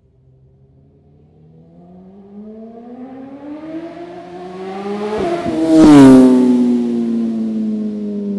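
BMW S1000R inline-four motorcycle engine, fitted with an aftermarket Akrapovic titanium header and Austin Racing GP1 exhaust, approaches while revving up, its note climbing in pitch and growing louder. It passes close by at its loudest about six seconds in, and the pitch drops sharply as it goes by and pulls away.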